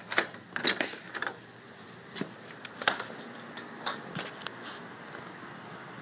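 Clicks, rattles and knocks of a curtain being pushed aside and a sliding glass patio door being opened and stepped through. A quick cluster comes in the first second or so, then single knocks follow every half second to a second.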